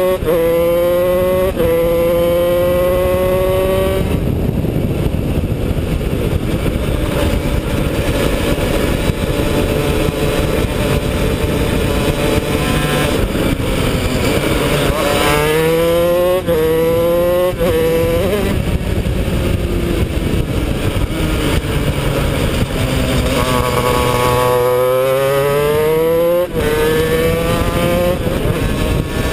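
Honda CR125 two-stroke single-cylinder engine of a shifter kart, heard onboard at full throttle. Its pitch repeatedly climbs and drops back as it is shifted up through the gears. Near the end the revs fall away into a corner and then climb again.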